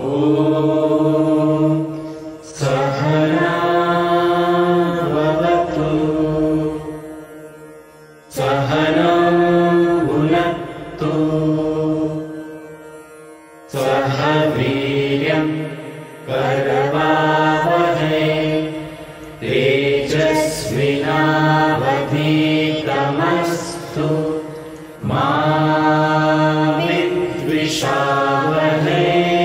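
Men's and women's voices chanting a prayer together, in a series of long sung phrases separated by brief pauses.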